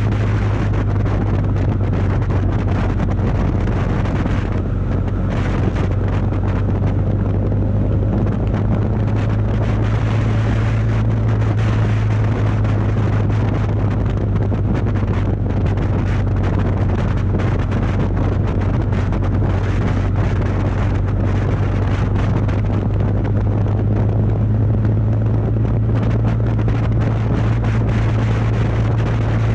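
Kawasaki VN750 Vulcan V-twin motorcycle engine running steadily at cruising speed, a constant low hum, with wind rushing over the microphone.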